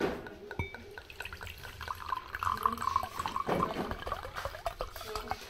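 Water dripping and trickling: many small irregular drops and splashes, busiest midway through.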